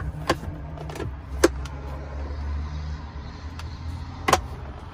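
Dashboard glove box lids in a pickup cab latching open and shut: sharp clicks about a third of a second in, near a second and a half, and just past four seconds. A low steady rumble runs underneath.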